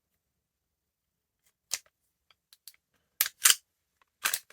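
Sharp metallic clicks and clacks of a SIG P320 pistol being handled as it is taken down, its slide and controls worked by hand: a single click, a few small ticks, then louder clacks in the last second and a half.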